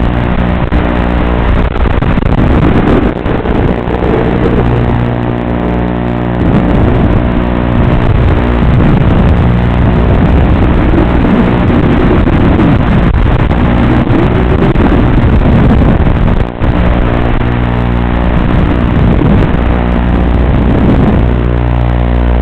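FPV quadcopter's electric motors and propellers running, whining and rising and falling in pitch as the throttle changes, over a steady buzz. There is one brief dropout in the sound about two thirds of the way through.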